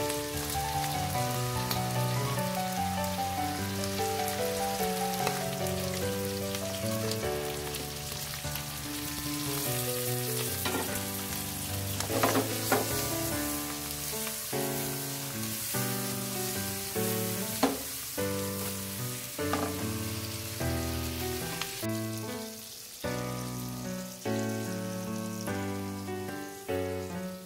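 Pork and kimchi stir-frying in a wok, a steady loud sizzle with a few sharp clicks of stirring, over background music. The sizzle dies away near the end, leaving only the music.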